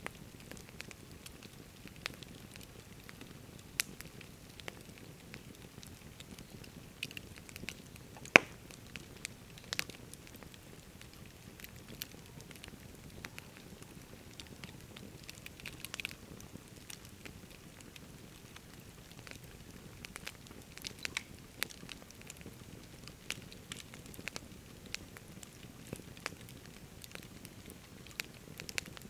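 Wood campfire crackling, with irregular snaps and pops over a low steady hiss. One sharp, loud pop comes about eight seconds in.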